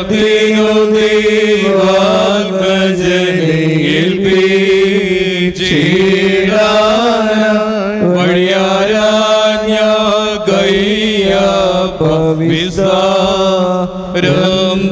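A Malayalam liturgical hymn chanted to a slow melody, its lines held out on long sustained notes without a break.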